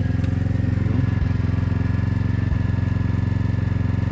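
An engine running steadily at constant speed, an even low drone with no change in pitch.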